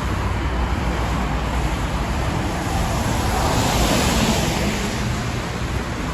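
Street traffic: cars passing with a steady hiss of tyres on a wet road, one growing louder and brighter about halfway through, then easing off.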